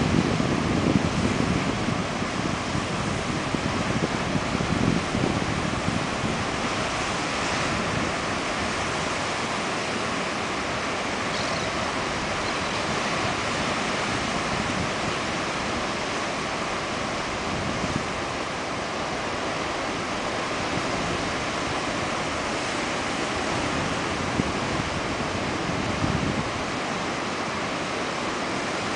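Pacific Ocean surf breaking and washing around rocks and sea stacks in a rocky cove: a continuous rushing wash of foaming water, heavier and louder in the first several seconds, then steadier.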